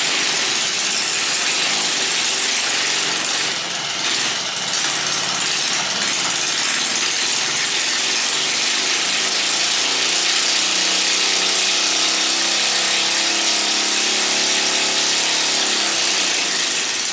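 Small engine running at speed on a homemade brake dyno during a test run, a loud steady mechanical running noise. The level dips briefly about four seconds in, and the sound cuts off suddenly at the end.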